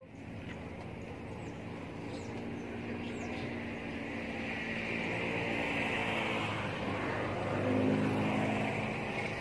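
A motor vehicle's engine running with a steady hum that slowly gets louder, peaking near the end.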